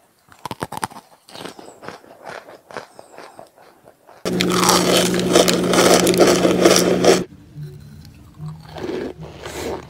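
Close-up biting and crunching of a hard, chalky white chunk, with crisp cracks several times a second. About four seconds in, a loud rush of noise with a steady low hum starts suddenly, lasts about three seconds and cuts off. Quieter crunching follows.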